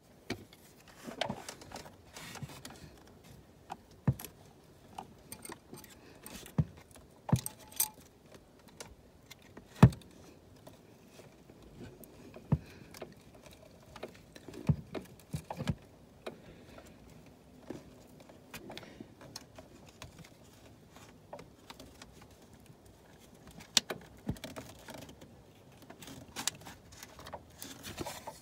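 Retainer clip being worked back onto the thermostat housing and coolant crossover pipe of an R56 Mini Cooper S's N14 engine: scattered clicks, taps and scrapes of the clip against the housing and nearby parts. The loudest is a sharp knock about ten seconds in.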